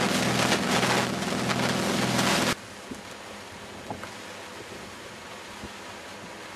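Wind buffeting the microphone over the steady low hum of a boat's engine while moving on the water, cut off abruptly about two and a half seconds in; after that only a low steady hiss with a few faint ticks.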